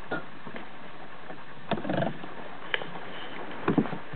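Latch and wire door of a plastic animal-transport kennel clicking and rattling as the door is unlatched and swung open: a few separate sharp knocks, the loudest near the end.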